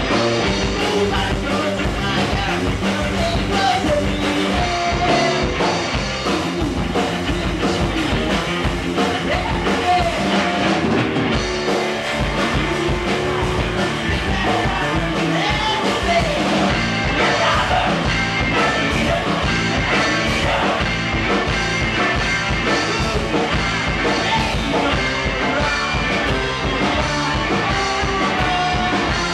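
Live rock band playing: a singer over electric guitars, keyboard and drums, with a steady driving beat.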